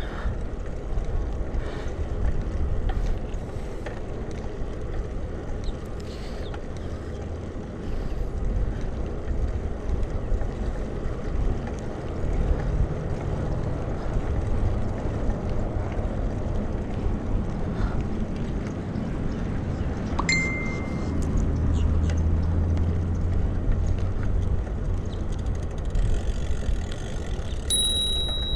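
Steady wind and road rumble on the microphone of a bicycle-mounted camera while riding a road bike, with a few faint clicks. A thin high steady tone comes in near the end.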